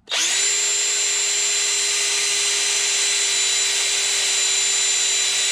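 Small Skil cordless drill running at a steady speed, boring a screw hole into the camper's wood. It spins up at once and holds one even pitch throughout.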